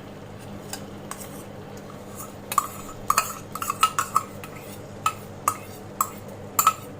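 Metal spoon clinking and tapping against metal cookware in a quick, irregular run of sharp clicks starting about two and a half seconds in, as cream is spooned into the gravy.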